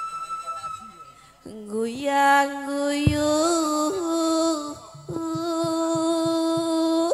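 A woman singing a Javanese langgam (campursari song) into a microphone, in long held notes with a rising glide about two seconds in and a slight waver on the held pitch. A brief thump sounds about three seconds in.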